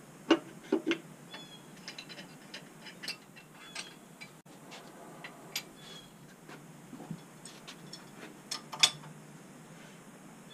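Irregular metal clicks and clanks of hand tools working on a bare 6.4 Hemi engine block, with a ratchet wrench turning at its far end. The sharpest clanks come about a third of a second in, twice just under a second in, and near the end.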